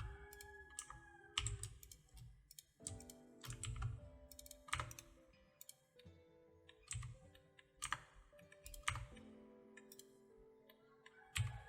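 Computer keyboard keys tapped in short irregular bursts, over soft background music with held notes.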